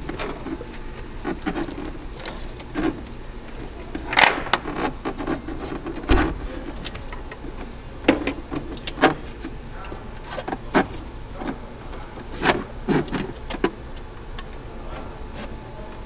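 Braided stainless steel hose being handled and fed through an engine bay, with irregular clicks, rattles and knocks as it scrapes and bumps against engine parts; the loudest knocks come about four and six seconds in.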